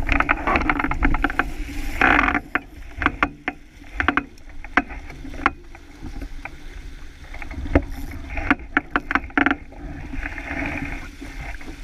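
Water rushing and splashing along the hull of a sailboat under sail, with many irregular sharp knocks and clicks.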